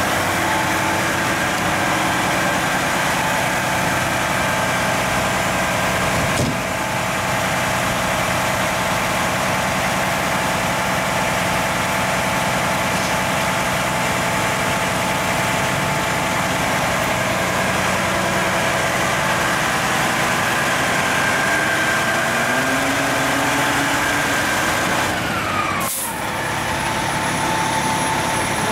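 Spartan Gladiator fire engine's diesel engine idling steadily. Near the end a tone falls in pitch and there is a short, sharp hiss of air.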